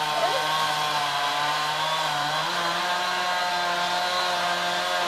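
Chainsaw running under steady load while cutting through a bundle of sawmill slab wood, its pitch stepping up slightly about halfway through.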